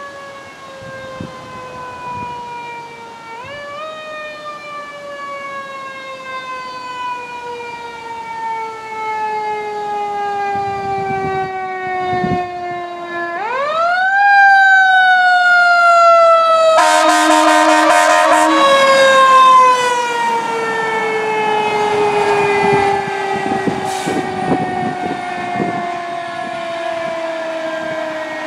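Fire truck siren that winds up quickly and then falls slowly in pitch over many seconds, wound up again twice. It grows louder toward the middle, where a loud pulsing blast sounds over it for about two seconds.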